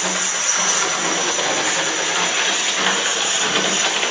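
Small OO gauge model locomotive running at full speed: a steady whir from its small electric motor and wheels running on the rails.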